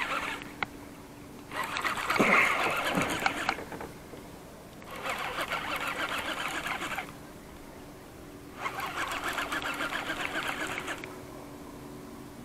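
Baitcasting fishing reel being cranked in four bursts of about two seconds each, a rapid ticking whir with short pauses between, as a blue catfish is reeled in against the current.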